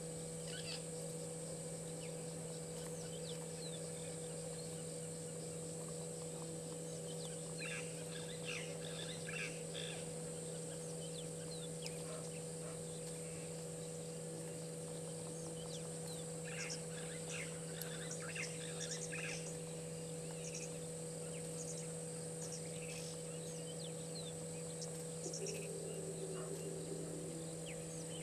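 Bird calls: two bouts of short, quick chattering notes, about eight and sixteen seconds in, with scattered higher chirps, over a steady background hum.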